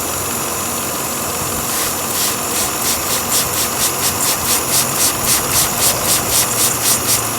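Volvo XC90 engine idling with a steady hiss of air being sucked in at a leaking PCV valve, whose diaphragm is probably broken. This is the vacuum leak behind its lean codes P0171/P0174. From about two seconds in, a rhythmic hissing pulse comes in, about four times a second, as sprayed water is drawn into the leak.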